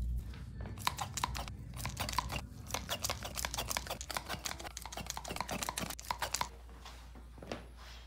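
Hands massaging skin: a quick, irregular run of small wet clicks and crackles that thins out about six and a half seconds in, with one last click near the end.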